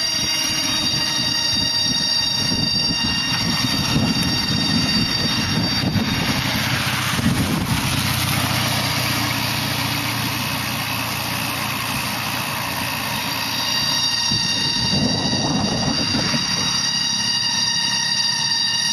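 Cicada chorus in the forest trees: an eerie, steady whine of several high pitches held together over a rushing lower noise, swelling briefly about seven seconds in.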